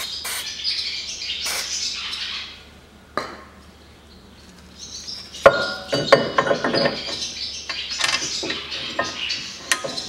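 Steel brake caliper bracket being fitted to a front steering knuckle: clinks and clatter of metal on metal, starting with a sharp knock about five and a half seconds in, after a rustling first part and a short quiet gap.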